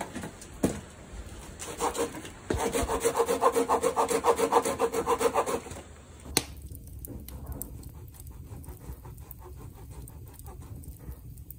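A hand tool rubbing back and forth over wood in rapid strokes, several a second, loudest for about three seconds in the middle. A sharp click follows, then fainter strokes continue.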